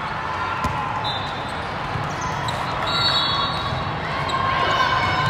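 Volleyball rally on an indoor court: a ball struck with a sharp slap, then sneakers squeaking on the court, over a steady murmur of crowd voices in a large hall.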